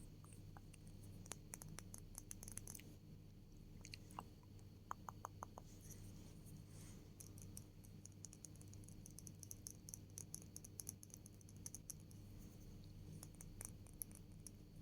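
Faint, rapid ASMR clicks and taps close to a sensitive microphone, coming in quick clusters with short pauses between them.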